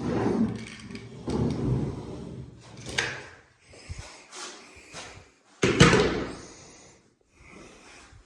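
Irregular knocks and rubbing sounds of things being handled, with a loud thump about two-thirds of the way through.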